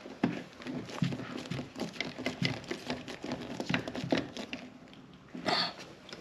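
Irregular small clicks, taps and scrapes of hands and a tool working on a loose wiring connection, with a louder rustle about five and a half seconds in.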